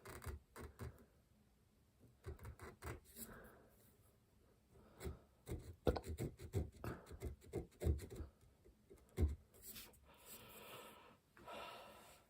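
Small hand-tool work at a bench: a run of short scratching strokes and clicks, densest in the middle, then two short rasping scrapes near the end.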